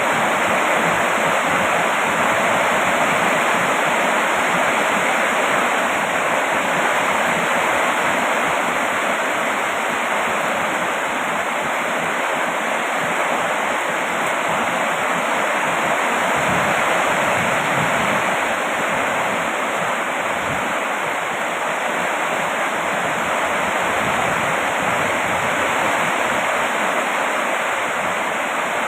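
Heavy rain falling steadily: an even, unbroken rushing hiss with no single drops or other sounds standing out.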